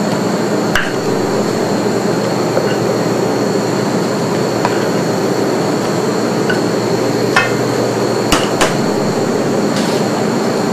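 Steady machine drone with a thin high whine running under everything. A few sharp clinks of a wire whisk against a stainless-steel mixing bowl come once about a second in and three times in the last few seconds.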